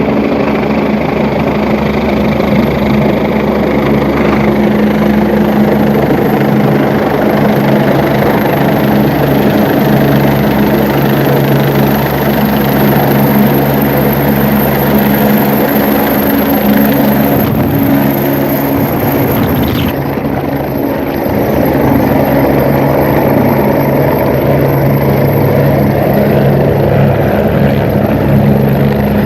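Helicopter running steadily close by: the turbine engines give a thin high whine over the steady drone of the rotor.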